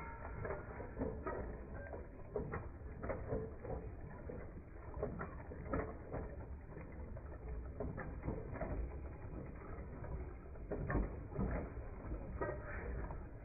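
Machinery running with irregular clicking and clattering, several clicks a second, over a steady low rumble.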